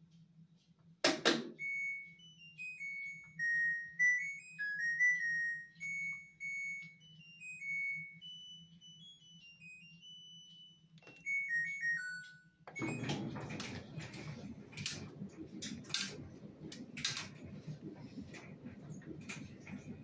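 LG washing machine's end-of-cycle tune: a click, then a melody of electronic beeps stepping up and down in pitch for about eleven seconds over a low steady hum. About two-thirds of the way through, the tune stops and a louder rustling, clattering noise takes over.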